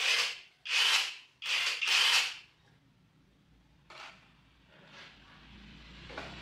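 Four short rubbing, scraping strokes by hand on a portable generator's casing, then a couple of light clicks as small parts are picked up from a tray.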